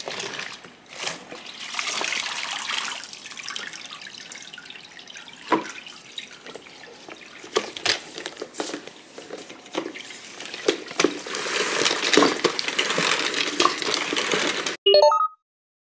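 Water pouring and splashing into a plastic spin-mop bucket, with scattered knocks of the bucket and mop handle; the pouring is heavier toward the end. It cuts off abruptly, followed by a brief short tone and then silence.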